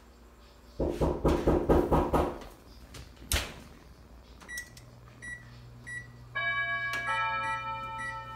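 Oven door and rack rattling as the cake pan goes in, then a single knock of the door shutting about three seconds in. After that the oven's electronic control panel beeps four times as it is set and sounds a chime of several tones near the end, over a low hum that starts with the beeps.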